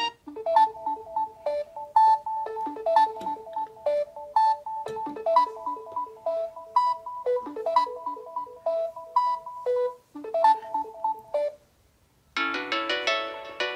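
Samsung Galaxy Note 10 Lite ringtone playing a light melody of short notes, several a second. It ends about eleven seconds in. After a brief pause, a fuller, busier ringtone tune starts near the end.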